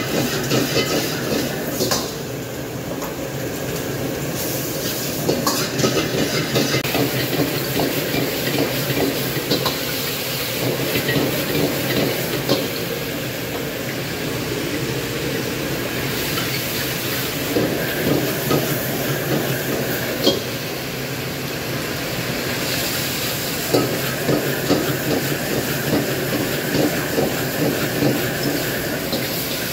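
Stir-frying in a wok over a high-flame gas wok burner: the burner's steady roar under sizzling food, with a metal ladle scraping and knocking against the wok again and again.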